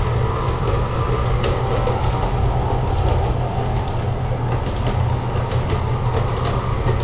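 LGB G-gauge model train running on its track: the locomotive's electric motor and gears give a steady low hum while the wheels rumble over the rails, with occasional faint clicks.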